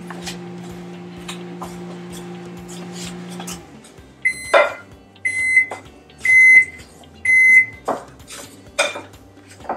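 Microwave oven humming steadily, then stopping a few seconds in and giving four short high beeps about a second apart: its timed heating cycle is finished. A wooden spoon knocks and scrapes in a bowl of dry ingredients.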